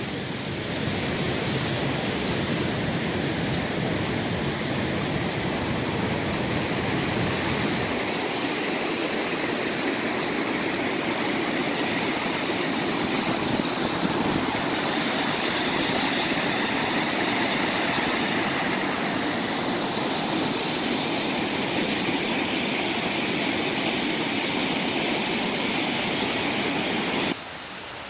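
River water rushing over rocks and a low falls, a steady noisy rush. Wind rumbles on the microphone for the first several seconds, and the sound turns suddenly quieter near the end.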